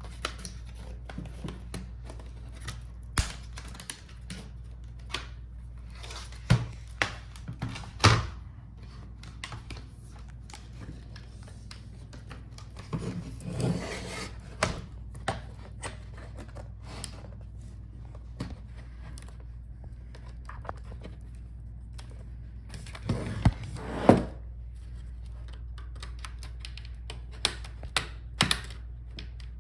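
Scattered clicks, taps and knocks of hands and tools on a laptop's plastic case and parts during disassembly, with two louder knocks about eight seconds in and near twenty-four seconds. A steady low hum runs underneath.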